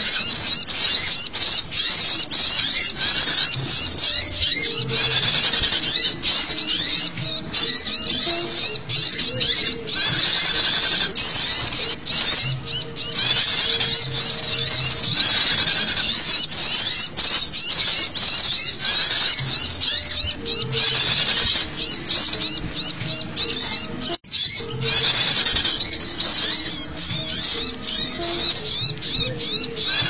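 Dense, noisy chorus of many small songbirds such as sunbirds and white-eyes: high, thin chirps and short rising call notes overlapping without pause. This is the agitated calling used as a lure for small wild birds. The sound cuts out for an instant about three-quarters of the way through.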